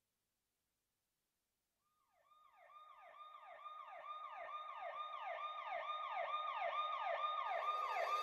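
Emergency vehicle siren fading in from silence about two and a half seconds in. It is a fast, repeating falling wail, about two cycles a second, growing steadily louder.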